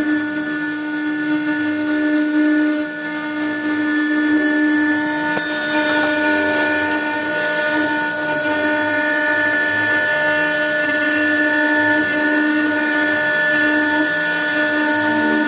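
CNC router spindle running with a steady high whine as a fine pointed engraving bit cuts ornamental grooves into wood on a finishing pass.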